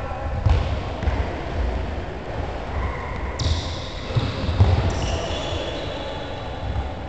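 Irregular dull thuds on a wooden sports-hall floor: footsteps and handballs knocking on the boards.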